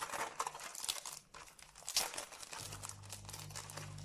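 Clear plastic film wrapped around a metal tin of coloured pencils crinkling as it is handled and pulled at. About two and a half seconds in, a steady low hum starts underneath: a dishwasher running.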